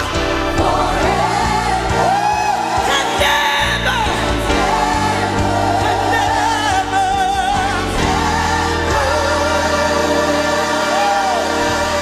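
Live gospel choir holding a chord while lead voices sing runs that slide up and down above it, over a band's sustained bass and keyboards.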